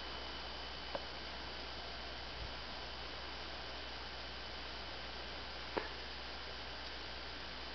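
Faint steady hiss and low hum with no other sound of note. Two faint short clicks break it, one about a second in and another a few seconds later.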